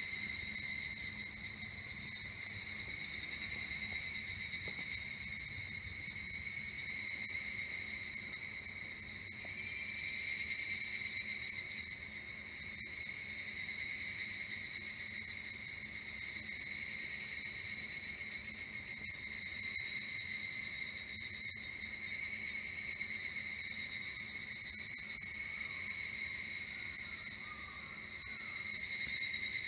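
Higurashi evening cicadas (Tanna japonensis) calling in chorus: a high, ringing trill from several insects that swells and ebbs every few seconds.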